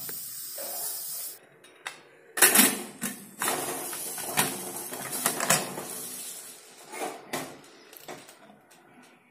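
Stainless steel pressure cooker lid being set on the pan and turned shut: a series of metal clanks, knocks and scraping as the lid is seated and closed by its handle.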